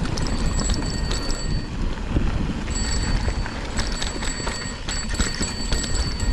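Mountain bike riding down a dirt trail: irregular clicks and rattles from the bike jolting over bumps, over a steady low rumble of wind on the microphone.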